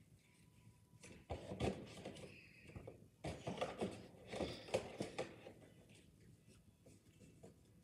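Cardboard game box being handled and rummaged through: rustling with light knocks and scrapes, in two bursts of a second or two each.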